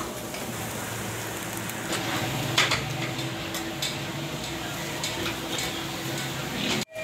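Fish sizzling in wire grill baskets over hot charcoal, with a few sharp metallic clinks as the baskets are handled on the grill. The sound cuts out abruptly for a moment near the end.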